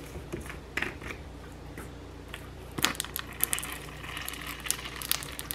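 Plastic squeeze bottle of Sweet Baby Ray's barbecue sauce being opened and squeezed upside down into a plastic mixing bowl: scattered clicks and crinkles of the plastic, with a cluster of them about three seconds in and more near the end.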